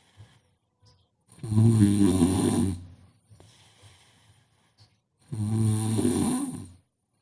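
A sleeping person snoring: two loud, long snores about four seconds apart, each lasting about a second and a half, with soft breathing between.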